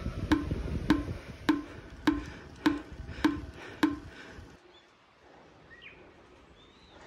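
Background music of wood-block-style percussion clicking about twice a second. It stops abruptly about four and a half seconds in, leaving faint outdoor quiet with a few short bird chirps.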